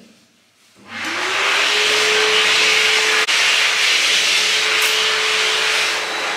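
Electric blower motor starting up about a second in, its whine rising as it comes up to speed and then holding steady over a loud rushing noise.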